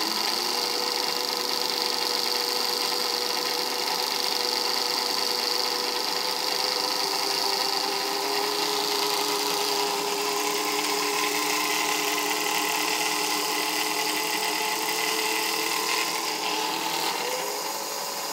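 Singer 15C sewing machine's electric motor running steadily, pedal held down and handwheel released, spinning the bobbin winder to fill a bobbin while the needle bar stays still. It is a steady whine with a strong high tone, and its pitch shifts a little in the last few seconds.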